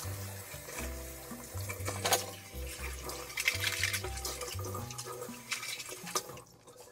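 Kitchen faucet running water into a stainless steel sink as plastic containers are rinsed under the stream, with a few knocks of plastic against the sink. Background music with a steady bass line plays under it.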